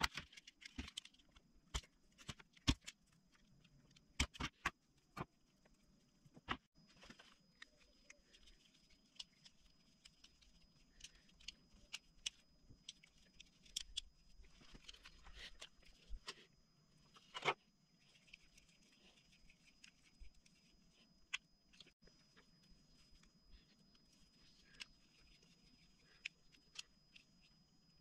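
Faint scattered clicks and rattles of hands working small wires, terminals and a plastic block connector with small tools. The clicks come thickest in the first few seconds, with one sharper click about two-thirds of the way through, over a faint steady high tone.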